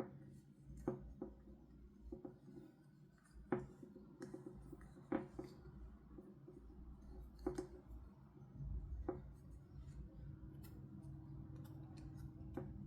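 Plastic toy parts and packaging being handled: scattered light clicks and taps at irregular intervals over a faint steady hum.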